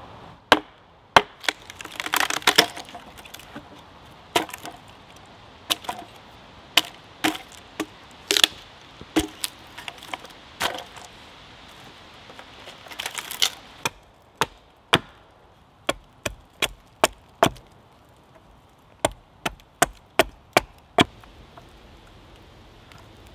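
Axe blows chopping into a log to hew it flat, each a sharp knock, with the wood cracking and splintering at a few of the heavier blows. The strikes come every half second to a second, lighter and more evenly spaced in the second half.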